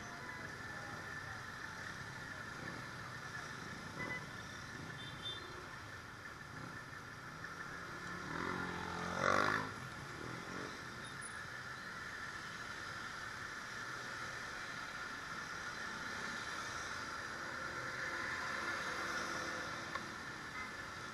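Steady road noise from a motorcycle moving slowly through traffic in the rain, with an engine revving up in one quick rising sweep about nine seconds in.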